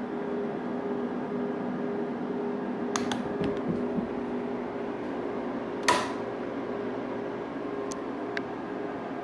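Steady hum and fan noise from running lab instruments (a boxcar integrator and an XY recorder), with two soft clicks about three seconds in, a sharper click near six seconds and a couple of faint ticks near the end, as the integrator's scan is switched on and the recorder starts plotting.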